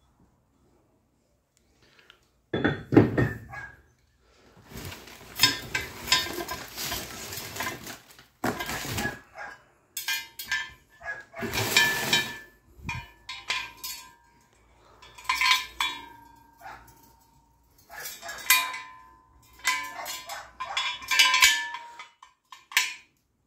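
Yato YT-17311 3-tonne steel jack stand being lifted from its cardboard box and handled: metal clanks and clinks, some ringing briefly, with the locking pin's chain jingling, mixed with bursts of cardboard and plastic-wrap rustling. The sounds start about two and a half seconds in and come in irregular bursts.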